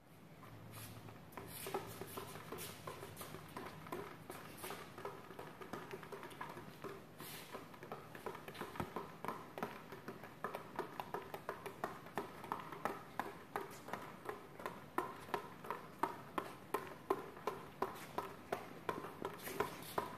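Rubber basketballs being handled on a concrete floor: a scatter of taps and knocks, turning later into sharper, fairly regular thumps about twice a second.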